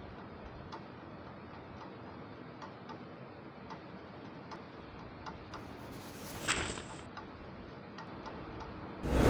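Clock ticking steadily over a low hiss. A short louder swish comes about six and a half seconds in, and a loud whooshing noise starts near the end.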